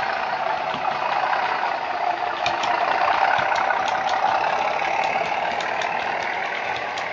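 Bachmann Class 37 model's DCC sound decoder playing the thrash of a Class 37 diesel engine working hard, through the model's small speaker, growing a little louder as the locomotive passes. From about two and a half seconds in, the model's wheels click over the rail joints as the locomotive and coaches go by.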